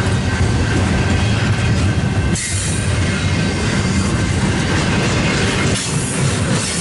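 Double-stack container train's well cars rolling past close by: a loud, steady rumble and clatter of steel wheels on the rails, dipping briefly about two and a half seconds in and again near the end.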